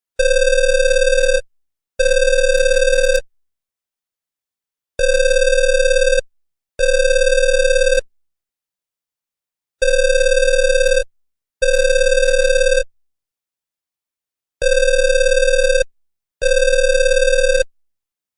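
Telephone ringing in a repeating double-ring pattern: two rings of about a second each, a short gap, then a pause of about a second and a half, four pairs in all.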